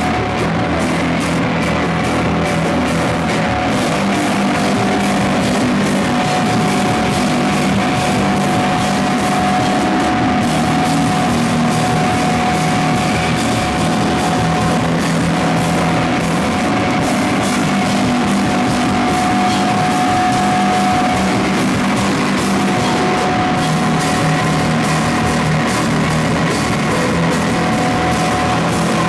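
Slowcore/noise rock band playing live: loud, dense electric guitar, bass and drum kit, with a steady high tone held through most of it over low sustained notes.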